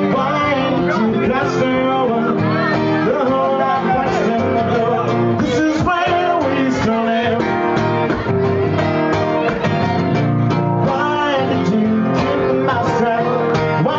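A man singing into a microphone while playing an acoustic guitar, a live solo acoustic performance heard through the room's sound system.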